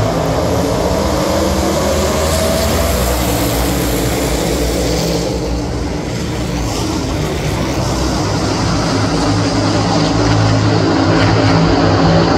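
A field of NASCAR Cup Series stock cars racing past, the many V8 engines blending into one dense, steady roar that grows louder over the last few seconds as the pack comes closer.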